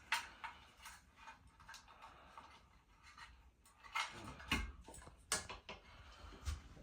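Irregular small metallic clicks and a few light knocks as ceiling-fan hardware and screws are handled and worked loose, louder knocks about two thirds of the way through.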